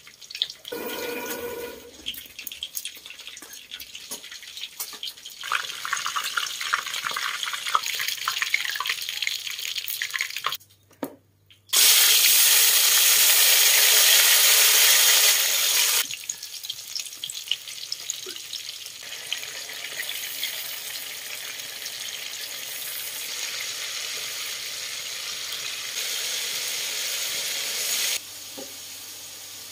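Tomato wedges sizzling in hot oil in a wok. A loud hiss starts suddenly about twelve seconds in, after a brief silence, and lasts about four seconds, then settles into a quieter, steady sizzle and simmer. Before the silence there is lighter, uneven crackling.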